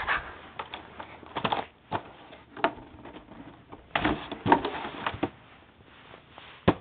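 Handling noise: scattered clicks, knocks and rustles as a handheld camera is moved around and set up, with a denser cluster about four seconds in and one sharp click near the end.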